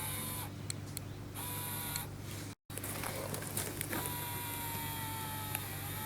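An RC crawler's small electric motor and drivetrain whining under throttle, in short bursts at first. About two-thirds of the way through, a longer, steadier whine sets in and slowly drops in pitch.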